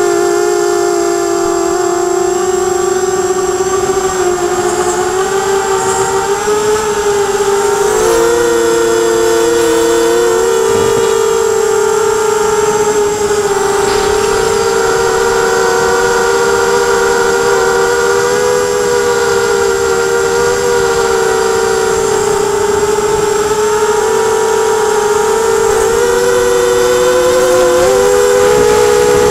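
Quadcopter's electric motors and propellers whining loudly and steadily, heard close up from the camera on board. Several close pitches sound together and drift up and down every few seconds as the throttle changes.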